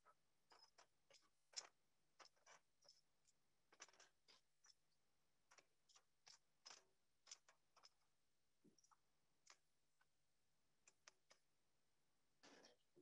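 Faint, irregular clicks and taps of metal tongs against a wire grill basket and a stainless steel bowl as grilled kimchi is scraped off into the bowl, with a longer scraping clatter near the end.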